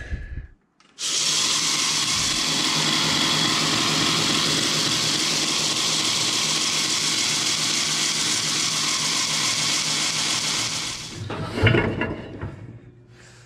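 Belt grinder started after a click, its abrasive belt running steadily at turned-down speed over the new S-grind platen, then switched off about eleven seconds in and spinning down, with a loud knock as it slows.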